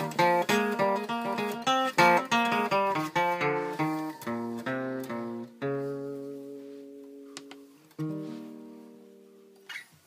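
Capoed 1965 Gibson Country Western acoustic guitar playing the close of a tune: quick single picked notes, then a chord about halfway through, then a last chord that rings out and slowly fades. A short handling noise comes just before the end.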